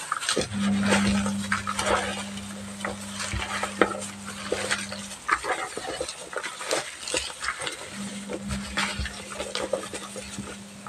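Hands mixing raw river fish pieces with lemongrass, salam leaves and torch ginger flower in a plastic basin: wet, crackly rustling with many small clicks. A low steady hum runs under it for the first half and comes back near the end.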